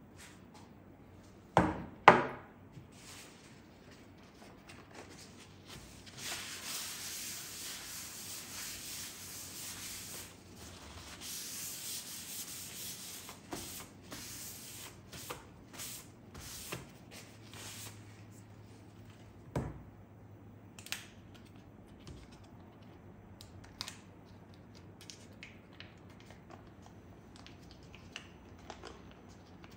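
Two sharp knocks about two seconds in, then a paper towel rubbing back and forth across a wooden cutting board for several seconds. After that, scattered light taps and short paper rustles as a paper-and-foil butter wrapper is unfolded.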